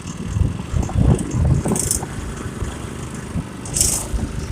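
Go-kart's small engine running unevenly under load, pulling through deep water, with two short bursts of hiss about two and four seconds in.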